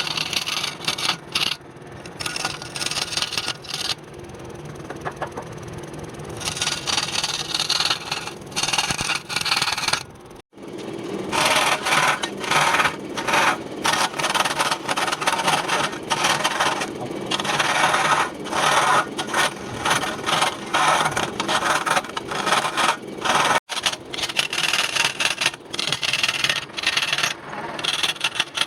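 A hand-held turning tool scraping and cutting wood spinning on a lathe, in uneven strokes that come and go every fraction of a second. The sound drops out abruptly twice.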